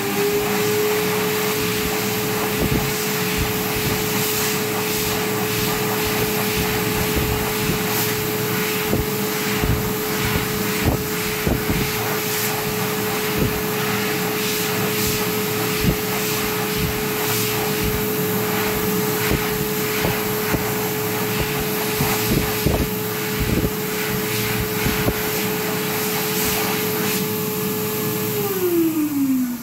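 PHS Airstream Whisper electric hand dryer running: a steady motor whine over rushing air, which winds down in pitch near the end as the dryer switches off.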